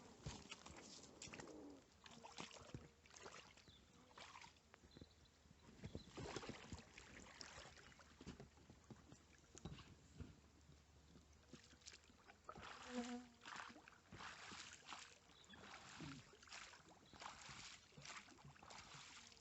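Faint, irregular splashing and knocking of water around a small inflatable boat on a still pond.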